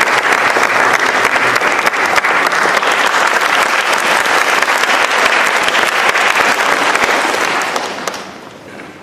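Audience applauding, steady, then dying away near the end.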